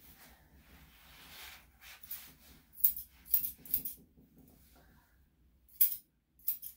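Curved grooming shears snipping the hair on a small dog's paw: short, sharp snips, three in quick succession about three seconds in and a few more near the end.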